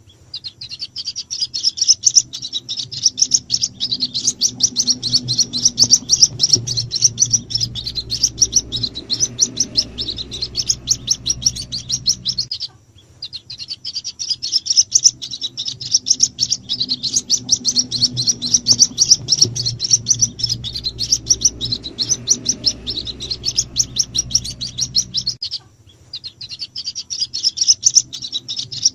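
White-breasted waterhen (ruak-ruak) chicks cheeping in a rapid stream of high-pitched calls, which break off briefly twice. It is a lure call used to draw in the parent birds. A steady low hum runs underneath.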